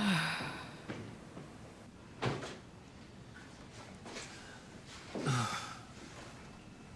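A door being handled in a quiet room: a short creak at the start, a sharp knock a couple of seconds in, and another creak near the five-second mark.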